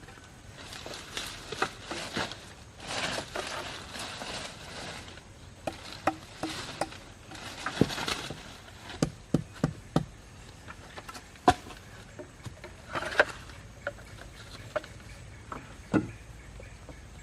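Irregular sharp knocks and taps of wood on wood, with bursts of rustling, as from handling branches and brush while building a shelter.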